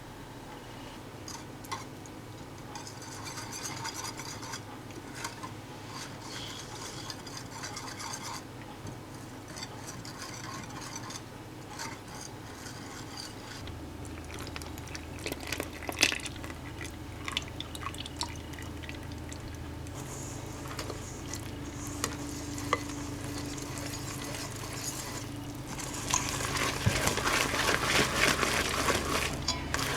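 Muffin batter being stirred and scraped in a mixing bowl, with light clinks of the utensil against the bowl and a sharper knock about halfway through. Near the end a louder, steady hiss comes in.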